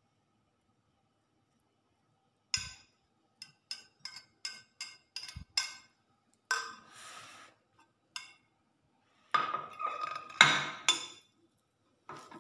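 Metal wire scraper clinking and scraping against a glass baking dish while coconut jelly is worked out of it: a run of about eight quick ringing clinks, a short scrape, then a louder clatter of knocks near the end.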